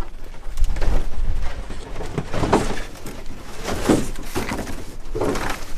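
Irregular rustles and knocks of packaging and large body-kit panels being handled and unpacked.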